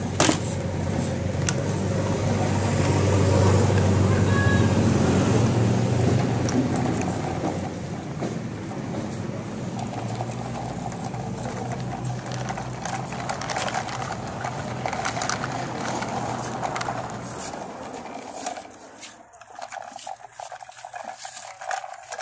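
The small motor of a homemade miniature tractor running with a steady hum as it tows a trailer loaded with peanuts. The hum stops near the end.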